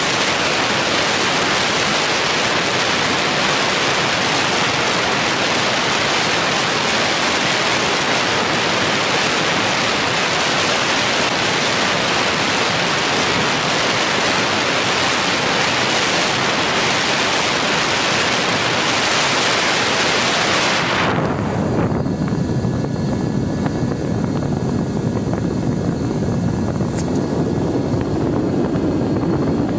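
Airflow rushing over the onboard camera of a Mini Talon FPV plane in flight, a loud even hiss. Late on it abruptly loses its high hiss and turns to a lower rumble with a faint steady whine.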